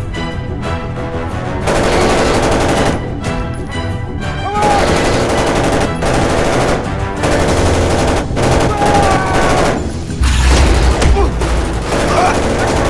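Gunfire in rapid bursts over an action-film music score, growing dense from about two seconds in.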